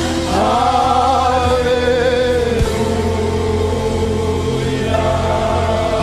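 Gospel worship singing: voices hold long, drawn-out notes, each sliding up into pitch, over live band accompaniment with a steady low bass.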